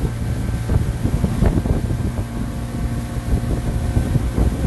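Motor launch's engine running steadily under way, with wind buffeting the microphone in uneven gusts.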